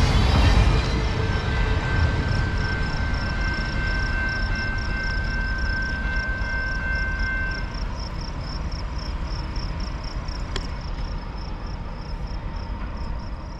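Freight train's last autorack cars rolling past, a low rumble that slowly fades as the train moves away. A steady high whine sounds for several seconds in the first half, and a fast, regular high ticking goes on alongside.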